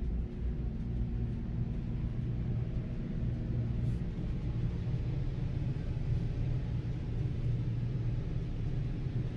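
A steady low rumble, continuous and without distinct events.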